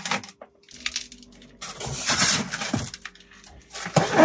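Clattering and scraping of stored objects being shifted and lifted by hand while rummaging through clutter, in two longer bouts with sharp knocks in between.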